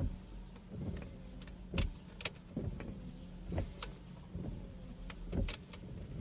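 Chevy S10 windshield wipers running on test after new wiper arms were fitted: the wiper motor whines faintly as the arms sweep back and forth, with a click or knock about once a second at the turns of the stroke.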